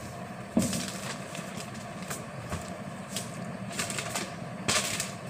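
Notebook pages and paper rustling and sliding on a desk as books are moved about, in a few short bursts, over a steady low hum.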